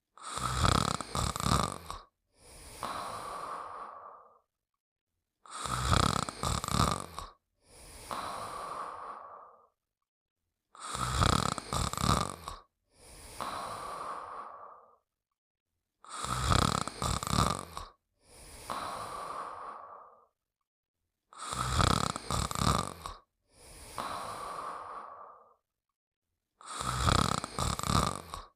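A cartoon character snoring in a repeating cycle, about every five seconds. Each cycle is a loud rattling snore followed by a quieter, softer out-breath, with a short silent gap before the next.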